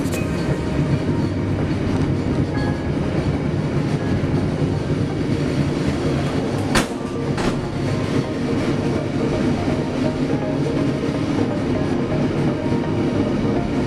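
Indonesian passenger train running along the track, heard from the rear of the last economy coach: a steady rumble of steel wheels on rail, with two sharp clacks about half a second apart roughly halfway through.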